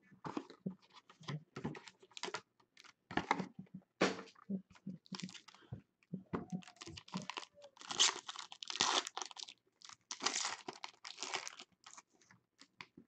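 Small cardboard card box being opened, then a foil-wrapped trading-card pack handled, crinkled and torn open. The rustling comes in short bursts and is loudest a little past halfway, where the wrapper is torn.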